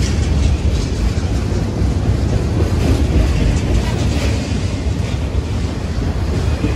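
Freight train cars (autoracks) rolling past close by: a steady rumble and rattle of wheels on rail.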